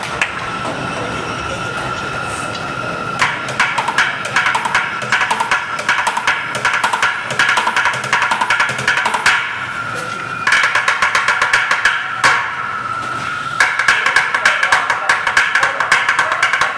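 Upturned plastic five-gallon buckets drummed with wooden drumsticks: fast rolls and rhythmic patterns in several runs, broken by short lulls near the start, about ten seconds in and about three seconds from the end, over a steady high hum.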